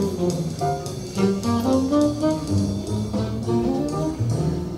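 Recorded jazz played back over a hi-fi system: a brass melody line over a walking bass, with light drum strokes.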